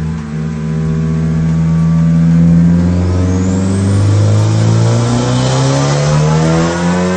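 Turbocharged K20C1 four-cylinder of a Honda Civic Type R pulling under load on a chassis dyno, its engine note climbing steadily in pitch. From about three seconds in a high whistle rises sharply over it as the drop-in turbo spools up.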